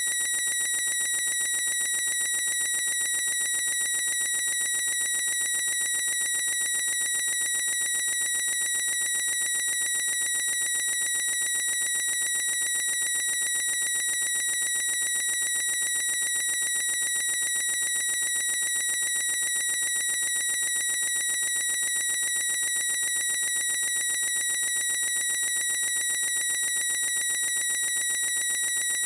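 A boy's high-pitched squeak, one unbroken note held at a single unchanging pitch with no pauses.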